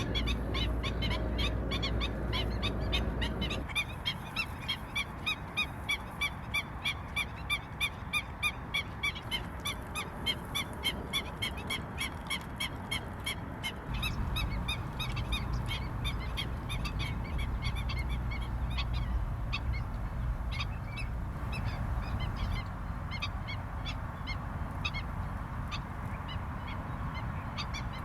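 Wild wetland birds calling in long series of short, high, repeated notes, about two to three a second, over a low background rumble that shifts abruptly twice.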